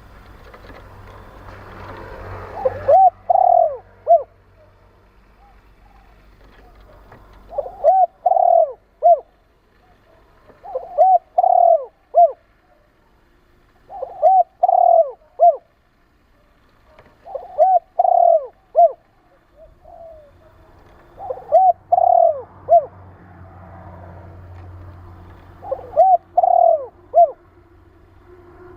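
Spotted dove cooing: short phrases of three or four arching coos, repeated seven times about every three to four seconds.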